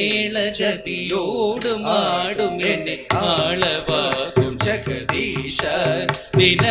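Live Carnatic accompaniment for a Bharatanatyam tillana in raga Hindolam, adi tala: an ornamented, gliding melody over a steady drone, with frequent sharp mridangam strokes.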